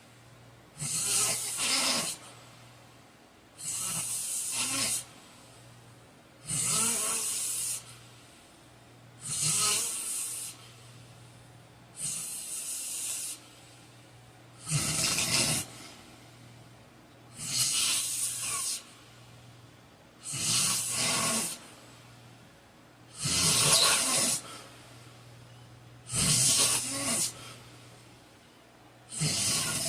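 A heavyset man snoring loudly in his sleep: about eleven long, rough, hissing snores, one every two to three seconds, some with a low rattle.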